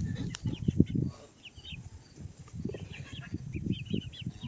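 Young chickens cheeping: many short, high peeps, getting busier after about two seconds, with a few low thumps underneath.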